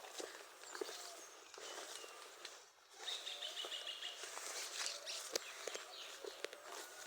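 Outdoor rural ambience with birds chirping, including a short high trill a few seconds in, and scattered sharp clicks and knocks.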